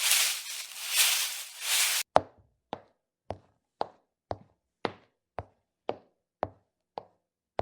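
Footsteps: first a few rustling, scuffing steps on a loose surface, then, about two seconds in, a switch to crisp footsteps on a hard floor, eleven sharp taps at about two per second.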